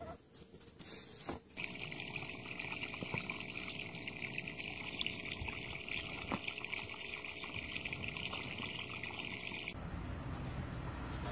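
Water trickling and splashing steadily at the edge of a garden pond, an even hiss that stops abruptly near the end.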